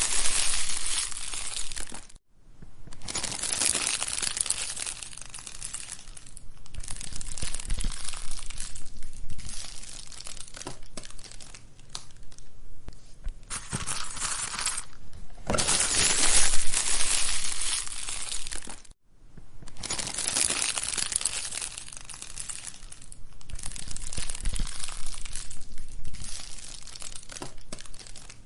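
Wood fire crackling: a dense hiss full of small snaps and pops that swells and fades, cutting out briefly twice, about two seconds in and again about two-thirds of the way through.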